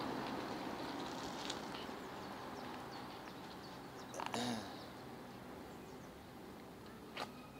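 Faint outdoor background noise, with one brief call that bends in pitch about four seconds in and a short click near the end.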